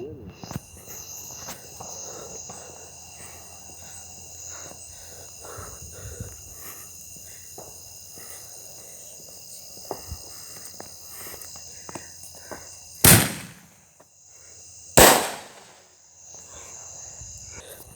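Two loud firework bangs about two seconds apart, each trailing off in a short echo, over a steady high chirring of insects.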